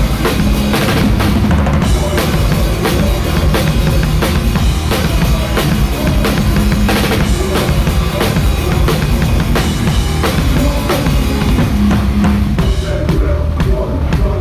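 Hardcore punk band playing live, a drum kit up front with fast, driving kick and snare hits and crashing cymbals over distorted guitars and bass.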